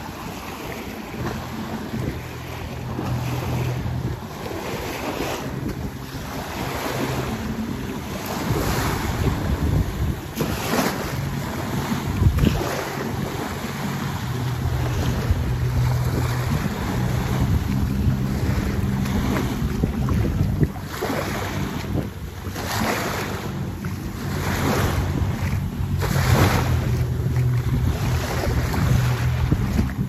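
Waves breaking and washing up the shore in repeated surges, with wind buffeting the microphone. A steady low engine hum runs underneath, fading in and out.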